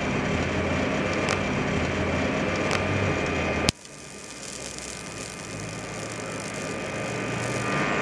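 High-voltage buzz from a microwave-oven transformer running at 2000 volts into a neon glow lamp that is arcing at its leads: a steady mains hum with faint crackles. It stops with a sharp click a little past halfway, then comes back quieter and grows louder toward the end.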